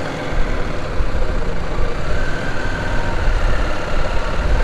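CFMoto 800 motorcycle running at low speed through busy market traffic, with the rumble of its engine and surrounding vehicles.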